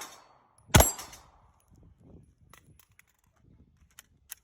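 A single gunshot about a second in, sharp and loud with a short ringing tail, followed by a few faint clicks near the end.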